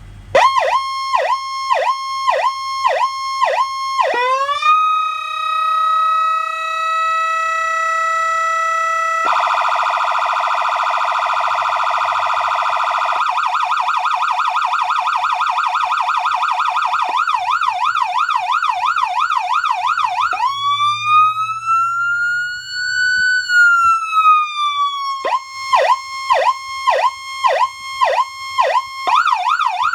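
Feniex Typhoon electronic siren cycling through its tones: a pulsing tone, then a steady high tone about four seconds in, a very fast warble, a yelp that sweeps up and down, and a slow wail that rises and falls, before the pulsing tone comes back near the end.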